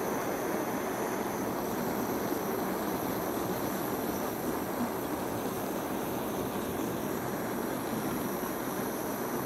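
Hand-held gas canister blowtorch burning steadily, a constant rushing hiss of the flame as it is played over solid ash wood to char the surface.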